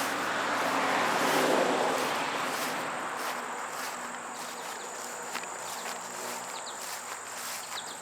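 A vehicle passes on the nearby road, its tyre hiss swelling to a peak about a second and a half in and then fading, over a steady high insect buzz. Faint footsteps and a few short bird chirps come near the end.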